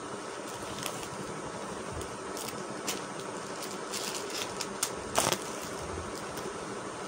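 Fabric and plastic packaging rustling in short crackly bursts as a garment is handled and folded, the loudest a little past five seconds in, over a steady background hum.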